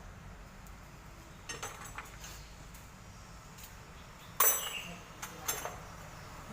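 A handful of short, sharp metallic clinks and knocks, a cluster in the first couple of seconds and the loudest about four and a half seconds in, over a low steady background noise.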